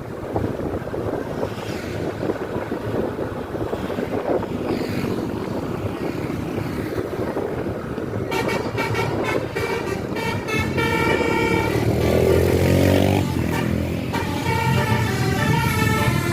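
Indonesian bus telolet horn, a multi-tone musical horn, playing a tune of stepped notes. It starts about halfway through, over road and vehicle noise.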